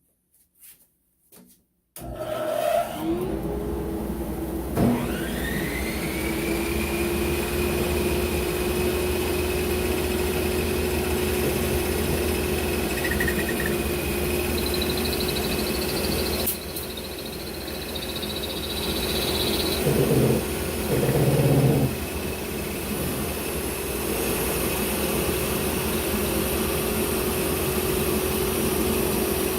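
Table saw switched on about two seconds in, its motor whining up to speed and then running steadily. A few louder moments come about twenty seconds in, typical of the blade cutting into a blank being turned to a taper on a table saw lathe jig.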